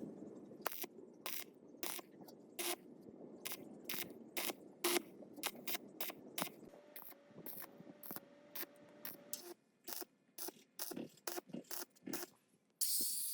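Ratchet wrench clicking in irregular runs as bolts are worked on the D26 diesel generator. Near the end a loud hiss of spray starts.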